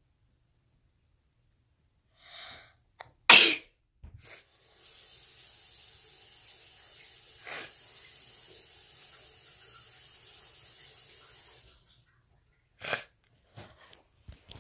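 A sneeze, sharp and loud, about three seconds in, with a short softer breath just before it. It is followed by a steady hiss lasting about seven seconds, then a short burst and a few clicks near the end.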